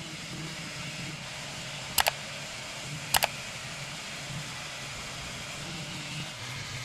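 Electric power sander running steadily against a fiberglass hull bottom, sanding off old anti-fouling paint. Two sharp double clicks come about two and three seconds in.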